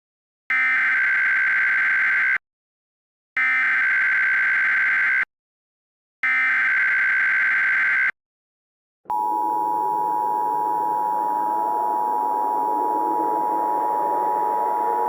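Emergency Alert System SAME header: three bursts of digital data warble, each about two seconds long with a second's gap between them. About nine seconds in, the steady two-tone EAS attention signal (853 and 960 Hz) starts, with a noisy hiss beneath it.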